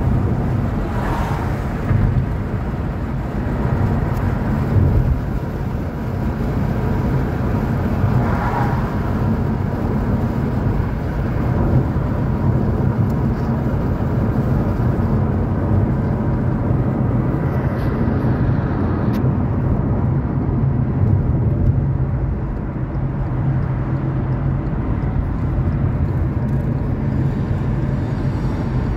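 Steady low rumble of road and engine noise from a car driving along a city road, heard from inside the moving car.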